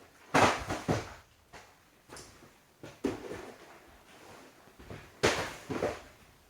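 Boxed LEGO sets being handled and moved in a small room: three clusters of short scraping and knocking sounds, near the start, around the middle and near the end.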